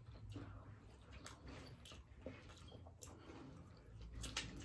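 Faint chewing and scattered small wet clicks and smacks of people eating boiled shrimp.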